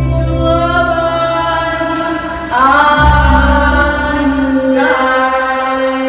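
Women singing together through microphones over a backing track, holding long notes and moving to a new note about two and a half seconds in and again near five seconds.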